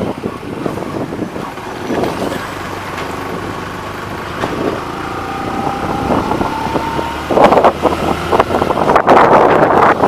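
Vehicle engines running at low road speed: the rider's own motorcycle and a passing bus on a hill road, with faint whining tones in the middle that rise slowly. Wind buffeting on the microphone returns about seven seconds in as the bike picks up speed.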